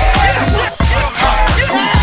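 Hip-hop beat with heavy bass hits and a short melodic phrase that repeats about once a second.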